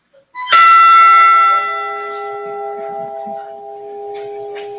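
Edmund Fitzgerald ship's bell model struck once about half a second in and left to ring out. Its upper notes fade quickly while the lowest note keeps ringing. It is one toll after a crewman's name in a memorial roll call.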